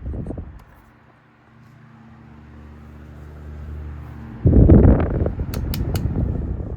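A 1954 Robbins & Myers 12-inch oscillating table fan (model C-12) running, its motor humming steadily and growing louder. About four and a half seconds in, a sudden loud rush of noise comes in, with a few sharp clicks.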